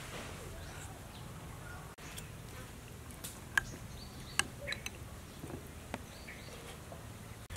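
A metal spoon clinking against a ceramic soup bowl a few times in the middle, two of the clinks sharp and ringing, over a steady outdoor background.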